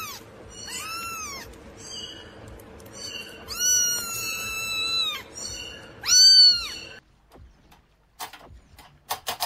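Kitten meowing four times in high-pitched mews that rise and fall, the third one long and drawn out and the last one the loudest. After a sudden cut about seven seconds in come a few light taps and, near the end, a quick run of clicks.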